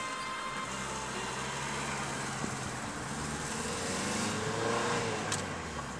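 Car driving along a street, heard from inside its cabin: a steady low engine hum under tyre and road noise, with the engine note wavering about four seconds in.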